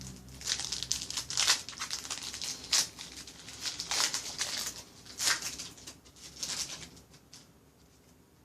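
Trading-card pack wrapper being torn open and crinkled, with cards handled: a string of irregular rustling bursts that die away about seven and a half seconds in.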